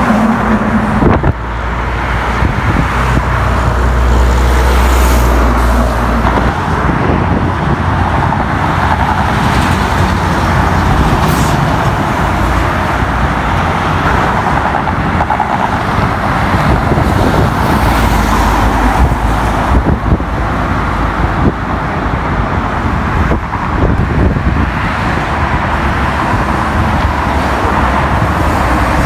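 Highway traffic with cars and heavy trucks passing close by: a continuous roar of tyres and engines, with deep rumble swelling as heavy vehicles go past a few seconds in and again about two-thirds through.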